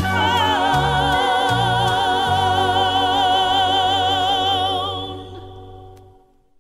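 Closing bars of a gospel song: a singer holds the final note with wide vibrato over the band, the bass stepping down beneath it, then the music fades out to near silence.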